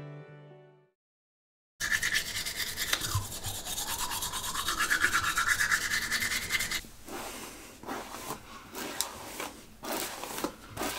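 Teeth being brushed with a toothbrush: a rapid scrubbing hiss, lasting about five seconds and starting about two seconds in, whose pitch dips and then rises again as the brush moves around the mouth. It breaks off suddenly, and soft rustling and light taps follow.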